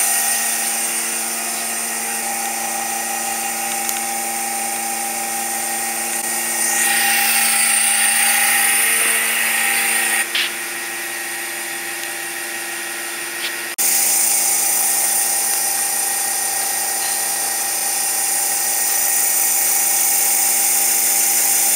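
Vacuum pump running steadily, a hum with a high hiss, holding vacuum on a bagged composite layup during resin infusion. The sound is quieter for a few seconds near the middle.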